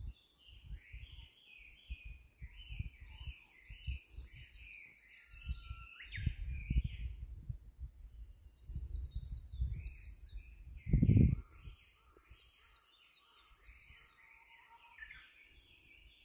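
Songbirds singing in bouts of quick, repeated chirping phrases, pausing briefly about six seconds in. Under them runs an irregular low rumbling, loudest in a single thump about eleven seconds in.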